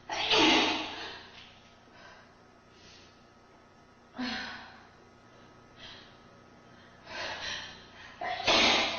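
Person sneezing: two loud, sudden sneezes, one just after the start and one near the end, with softer gasping breaths between them.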